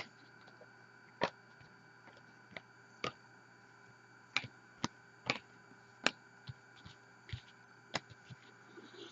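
Topps Chrome trading cards being sorted by hand and set down on a table: about a dozen light clicks and taps at irregular intervals.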